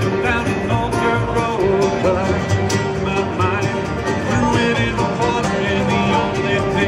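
Bluegrass band playing live: banjo, acoustic guitar, mandolin and upright bass in an instrumental passage.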